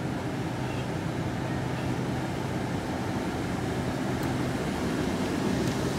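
LNER Azuma Class 801 electric train standing at the platform, giving off a steady low hum that grows slightly louder near the end.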